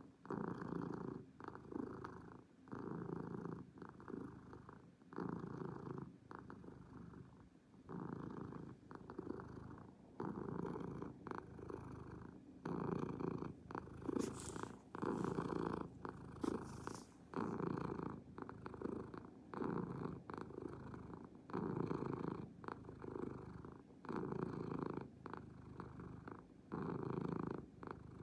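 Domestic cat purring steadily, the purr swelling and fading about once a second with its breathing.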